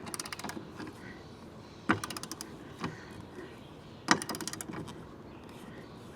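Three short bursts of rapid clicking and rattling, from awning mounting hardware and parts being handled. The bursts come at the start, about two seconds in and about four seconds in.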